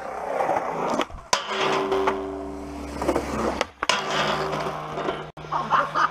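Skateboard wheels rolling over concrete with a steady hum, broken by several sharp clacks and knocks of the board, ending in a slam onto the concrete.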